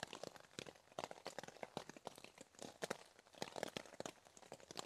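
Faint, irregular taps and crackles of raindrops hitting the tent and tarp fabric.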